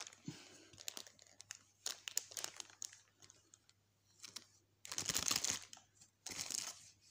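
Crinkling and rustling of plastic wrapping being handled, in four short bursts with a few light clicks; the loudest burst comes about five seconds in.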